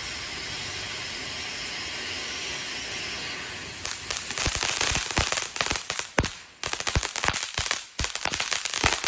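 Ground fountain firework hissing steadily as it sprays sparks; about four seconds in it breaks into rapid, loud crackling and popping as it throws out crackling stars.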